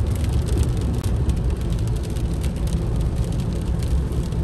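Cabin noise of a 2019 Toyota Corolla GLi 1.3 driving on a wet motorway: a steady low engine drone over tyre and road hiss, with light scattered tapping of raindrops on the windscreen.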